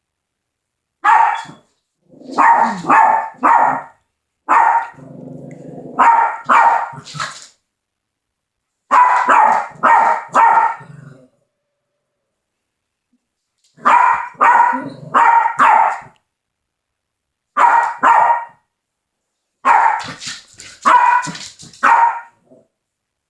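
Dogs barking in short volleys of one to four barks with pauses between, and a low growl about five seconds in. They are barking in alarm at a smoke detector's noise.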